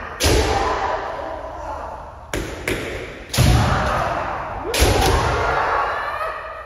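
Kendo practice in a large wooden-floored hall: bare-foot stamps (fumikomi) thudding on the wooden boards and bamboo shinai cracking on armour, about six sharp impacts, with kiai shouts from several fighters, all echoing in the hall.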